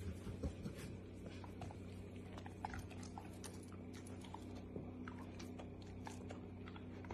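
Young dog chewing a treat: faint, irregular crunching clicks over a steady low hum.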